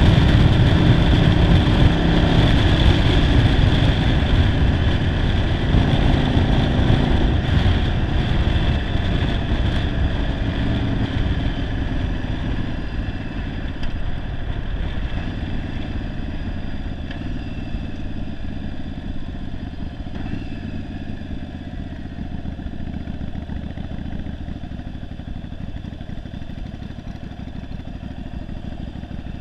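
Yamaha Virago 750's air-cooled V-twin running under way, with wind rush, on a single-carb conversion that the owner says runs poorly. The sound falls steadily in loudness as the bike slows, and the wind rush fades out over the first ten seconds or so.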